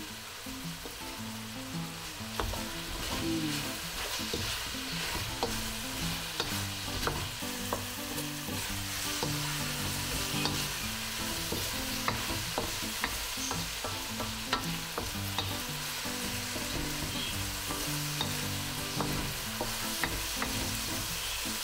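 Chicken, ginger and spring onion sizzling in a hot wok, with a wooden spatula stirring and scraping against the pan in frequent short clicks.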